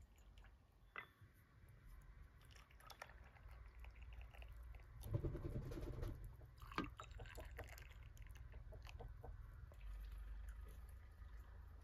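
Tea glasses, a glass teapot and cups clinking softly against each other and the wooden tray as tea is poured and served, a few light sharp clinks, busiest about halfway through.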